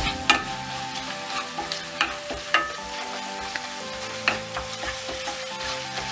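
Wooden spatula stirring and scraping a thick onion and spice masala frying in oil in a non-stick kadai, over a steady sizzle. A few sharp knocks of the spatula against the pan stand out.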